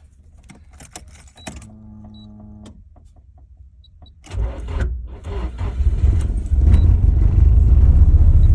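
Nissan S14 Silvia's SR20DET turbocharged four-cylinder engine started for the first time after a full overhaul: a few clicks and a brief electric hum as the ignition is switched on, then a little over four seconds in the engine is cranked and catches, growing louder over a couple of seconds into steady running.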